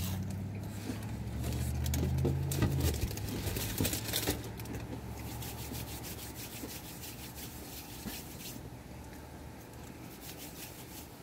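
Crunch of a crispy fried catfish fillet being bitten and chewed, with crackly crunches in the first few seconds that then fade. A low hum sounds under it and stops about three seconds in.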